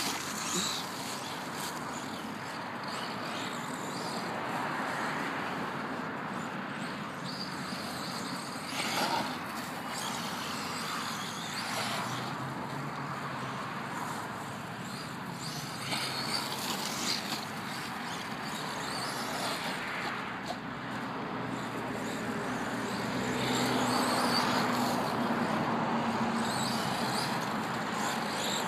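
HPI Savage XS electric RC monster truck on a 2S LiPo driving over grass and pavement: its motor and gears whine and its tyres rush over the ground, rising and falling with the throttle, louder in the last few seconds.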